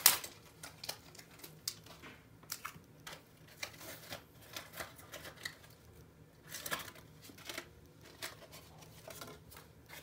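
Trading cards and packaging handled close by: irregular light clicks, taps and crinkles, with one sharp click at the very start.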